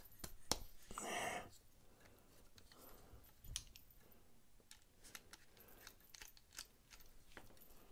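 Faint scattered clicks and light taps of a folding knife and a small screwdriver being handled as the driver's bit is set into a handle screw, with a brief soft rustle about a second in.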